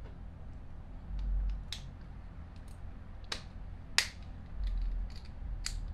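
Scattered sharp clicks and taps from a multi-bit screwdriver being handled and set to the screws of a Penn 704z spinning reel, the loudest about four seconds in.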